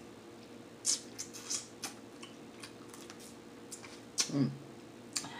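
Snow crab leg shells cracking and clicking as they are broken apart by hand, several sharp clicks in the first two seconds, with the meat sucked from the shell. A brief hum of the voice comes about four seconds in.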